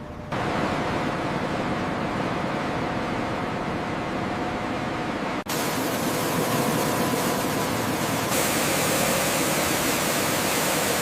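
Steady, even rushing noise with a faint machine hum in it. It cuts abruptly about five and a half seconds in to a brighter, hissier noise, which grows a little louder again near eight seconds.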